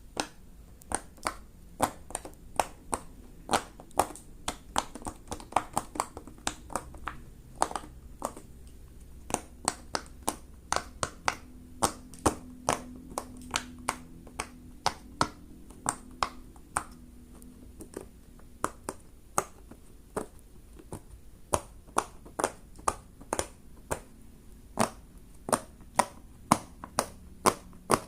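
Silicone Pop it fidget toy having its bubbles pressed through: a long string of sharp pops at an uneven pace, roughly two a second, sometimes in quicker runs.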